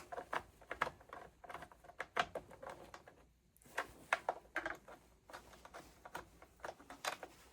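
Faint, irregular clicks and light taps of small parts and tools being handled, with a short quiet gap about three seconds in.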